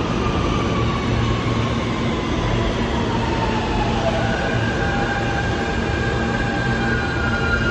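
An R160-series New York subway train running past on the far track, its wheels rumbling steadily on the rails. Over the rumble, the electric traction motors whine and slide slowly down in pitch, and a higher whine comes in about four seconds in.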